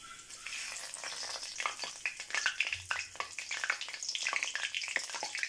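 Cumin seeds and bay leaves frying in hot mustard oil in a kadai, sizzling with dense crackling and popping that starts about half a second in.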